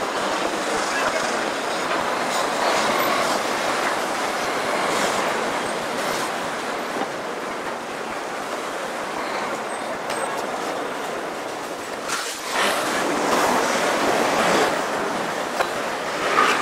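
Busy city street ambience: a steady rush of traffic and pedestrian noise with no clear voices, which dips briefly about twelve seconds in and then grows louder for a few seconds.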